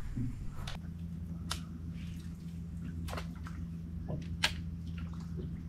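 Low steady hum of a bow-mount electric trolling motor, with a few sharp clicks scattered through it, the loudest about four and a half seconds in.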